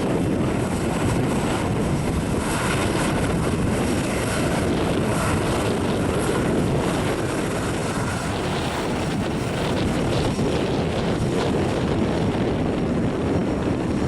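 Boeing 737-800's CFM56 jet engines running steadily, with wind on the microphone.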